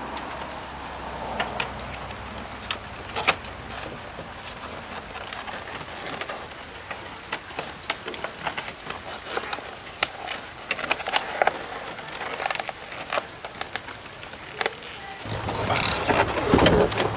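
Scattered clicks, knocks and rattles of a convertible soft-top frame and its vinyl top being handled and tilted as it is worked loose from the car, irregular throughout and denser near the end.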